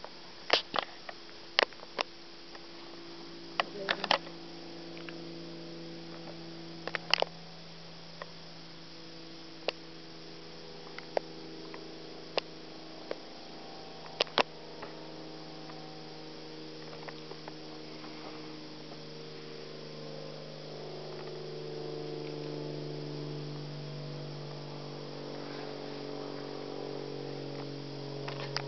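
Low, steady drone of a distant aircraft engine, like an old-fashioned propeller plane. Its pitch slowly wavers, and it grows louder in the second half, with scattered sharp clicks over it.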